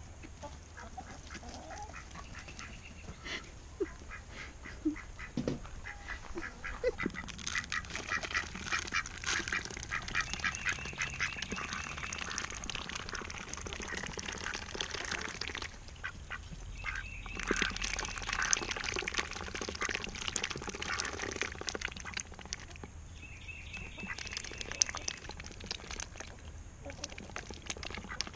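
Domestic ducks quacking and chattering while dabbling their bills in a shallow water dish. The calls come in long runs through the middle of the stretch, with a short burst again near the end.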